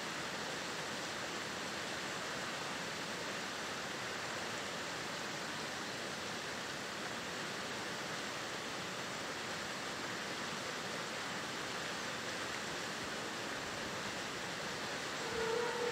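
Steady, even outdoor background hiss with no distinct events. Near the end a faint ringing tone begins.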